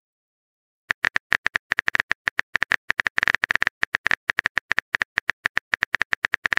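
Typing sound effect of a texting-story app's on-screen keyboard: a fast run of clicks, several a second, as a message is typed out. It starts about a second in.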